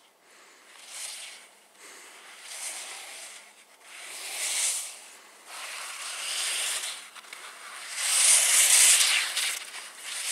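Skis hissing and scraping over snow as a skier turns down the slope: a swell of hiss with each turn, about every two seconds, the last one the loudest.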